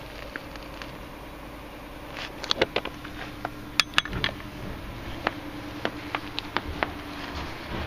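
Scattered light clicks and knocks from handling and footsteps at a snowy chicken coop, with two sharp clicks close together about halfway through, over a faint steady hum.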